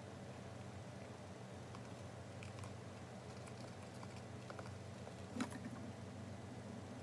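Faint scrabbling and light tapping of a hamster's claws on a plastic carrier, with one louder tap about five and a half seconds in as it drops onto a plastic kitchen scale. A low steady hum runs underneath.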